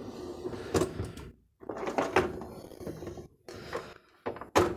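Wire dish racks and plastic cutlery basket inside an open dishwasher being handled: a few knocks and rattles, the sharpest near the end.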